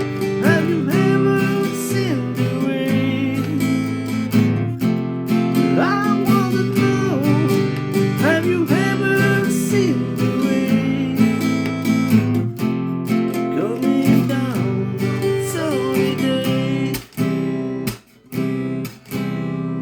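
Acoustic guitar strummed in a steady rhythm with a singing voice over it. Near the end the strumming breaks off in a few short stops.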